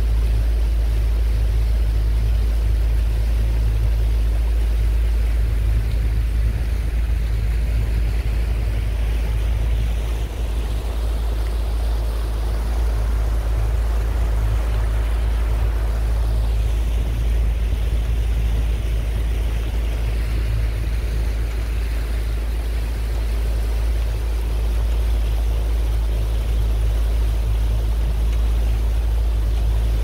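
Motorboat under way: a steady low rumble of motor and wind, with the hiss of rushing water growing louder for a few seconds around the middle.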